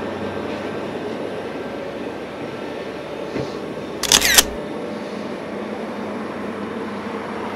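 Camera shutter firing about four seconds in, a quick double click, over a steady hum of street traffic.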